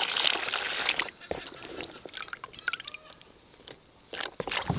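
A stream of water pours into a plastic tub of rose hips and stops about a second in. Drips and small splashes follow, then a few sharper splashes near the end as a hand stirs the wet rose hips.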